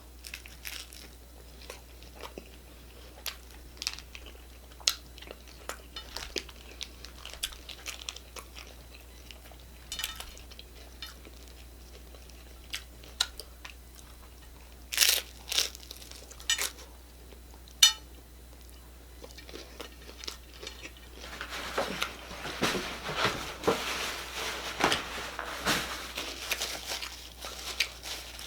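Close-up mouth sounds of someone eating hard-shell tacos: wet chewing and small clicks, a couple of sharper bites in the middle, then loud continuous crunching of the taco shells through the last third.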